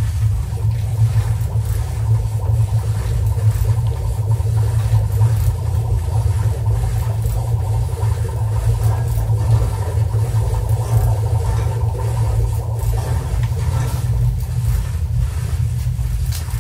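Electroacoustic sound collage played back: a loud, steady low drone with a dense, rough grinding layer above it, built from layered recordings of a historic laundry mangle turning.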